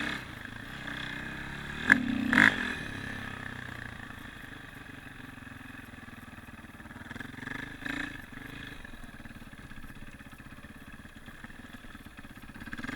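Dirt bike engine running steadily, with two sharp clacks about two seconds in and a fainter one later.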